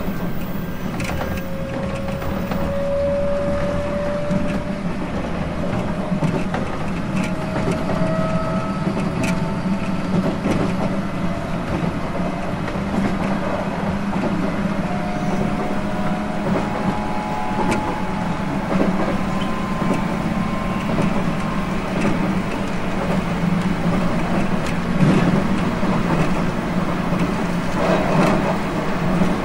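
JR East 719 series electric multiple unit running on the line: a steady rumble of wheels and running gear, with faint whining tones that creep slowly upward in pitch.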